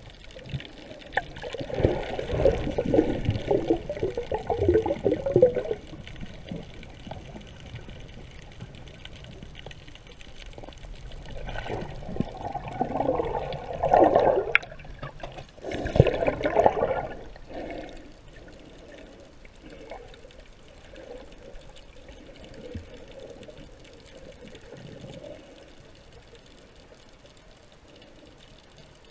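Water sloshing and bubbling, recorded underwater. It swells three times for a few seconds each, with quieter water noise in between and after.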